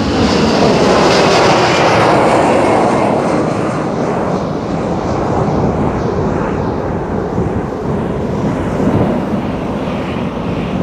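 Boeing 767-300ER's twin jet engines at takeoff thrust: a loud, steady roar that peaks about a second or two in as the airliner lifts off, then slowly fades as it climbs away.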